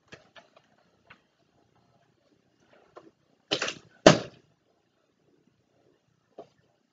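Part-filled plastic water bottle being flipped: a few faint crinkles and clicks as it is handled, then two thuds about half a second apart as it comes down on the carpet, the second the louder and deepest, landing upright.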